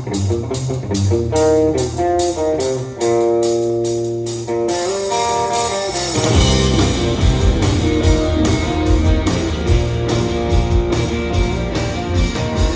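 Rock band playing live: an electric guitar intro of picked, ringing notes over a steady high ticking beat, then bass and full drums come in about six seconds in.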